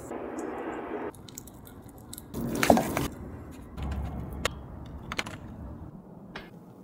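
Food-prep sounds in quick succession: mashed potato squishing in a stainless steel bowl, then a spoon scraping as mash is spread into potato skins, with a louder clatter and brief metallic ring near the middle and a few sharp clicks later.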